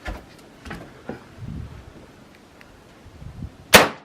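A Marlin .45-70 lever-action rifle fires a single shot near the end, a very loud, sharp crack. Before it there are faint knocks and rustling.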